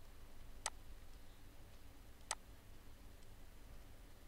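Two sharp clicks of a computer mouse button, about a second and a half apart, over a faint low hum.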